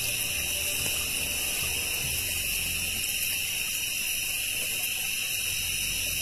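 Night-time rainforest insect chorus, a steady high-pitched shrilling in several layered pitches that does not let up.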